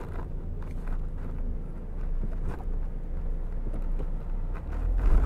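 Car engine and road noise heard from inside the cabin while driving: a steady low rumble that grows louder near the end, with a few faint clicks.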